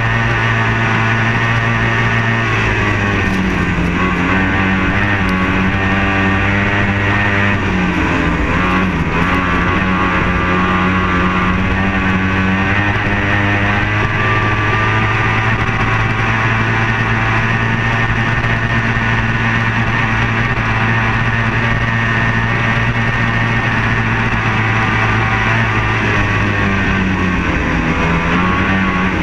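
Race powerboat's outboard engine running at high revs, heard onboard under wind and spray noise. The engine note holds steady and dips briefly a few times as the throttle eases, then picks up again.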